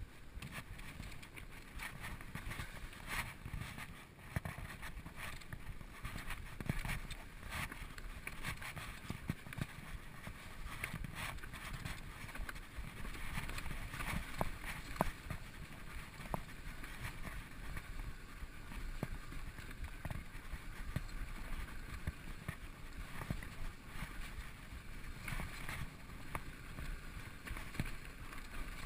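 2012 Specialized SX Trail full-suspension mountain bike riding fast down a rough dirt singletrack: a constant rush of wind over the microphone, with frequent knocks and rattles as the bike's tyres and suspension take rocks and roots.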